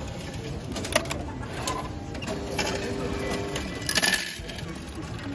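Coins clinking and the mechanical whirr of a racecourse betting-ticket machine taking cash, with a louder burst of clinking about four seconds in.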